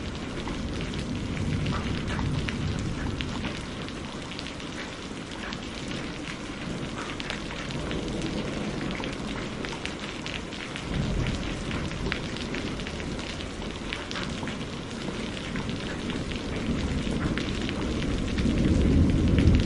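Steady rain falling, with many small drops ticking, under low rolls of thunder: one swells about eleven seconds in, and another builds toward the end.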